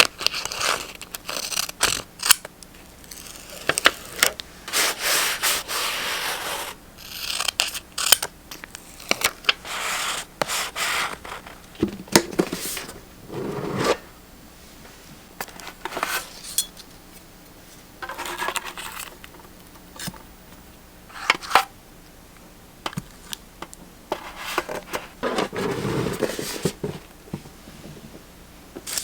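Paper being handled and rubbed on a journal page, rustling in irregular strokes with scattered small clicks and taps.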